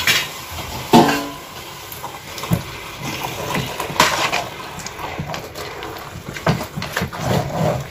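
Thick, sticky cooked wheat-starch paste being stirred hard with a metal spoon in a steel pot: wet squelching and slapping, with the spoon knocking and scraping against the pot at irregular moments. The loudest knocks come about a second in and at about four seconds.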